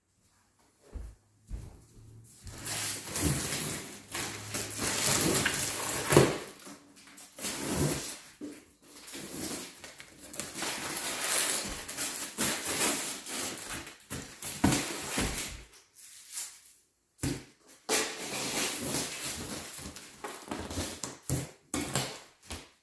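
A large cardboard box being handled and shifted on a tile floor: scraping and rustling cardboard with scattered knocks, in several stretches with short pauses between them.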